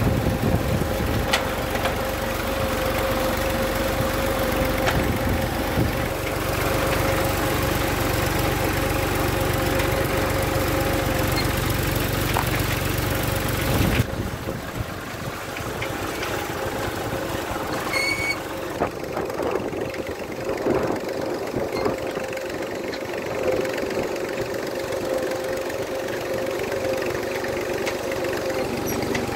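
Farm tractor's diesel engine running steadily under load while pulling a spring-tine cultivator through soil. The deep low rumble drops away about halfway through, and a brief high chirp sounds a little later.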